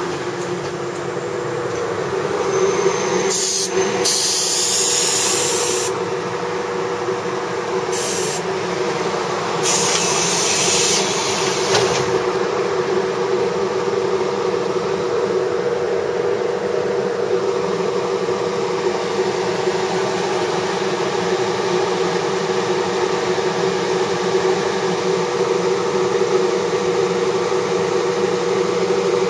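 JR 413 series electric train standing with its onboard equipment humming steadily. Bursts of air hissing come a few seconds in and again around ten seconds in.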